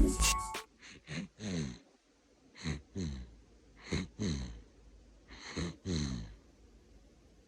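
A 38-day-old baby snoring in sleep: four rhythmic snoring breaths, each a double nasal snort with a falling pitch, about every one and a half seconds. The parents put the snoring down to the baby gulping formula too fast.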